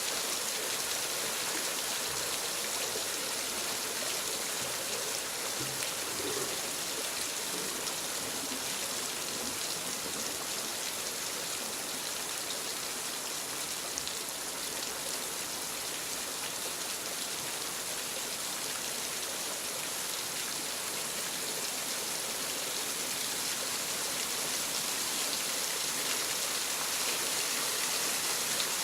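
Waterfall: a steady, unbroken rush of falling water, like a constant hiss.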